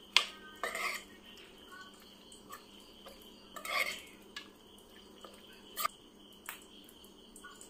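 Steel spoon stirring thick chicken marinade in a stainless steel pot, clinking and scraping against the metal. A sharp knock comes at the start, then several scattered clinks.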